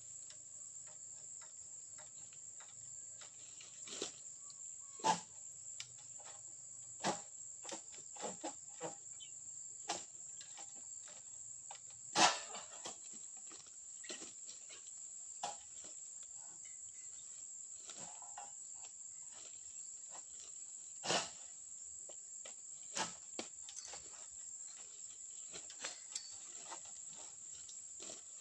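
A steady high-pitched insect chirring, with scattered sharp knocks and a few louder thumps, the loudest about twelve seconds in.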